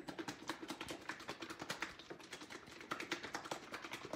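Chicken pieces and cornstarch shaken in a closed plastic food container with a snap-on lid, a fast, uneven run of knocks and rattles as the pieces hit the walls and lid. This is the chicken being coated in cornstarch.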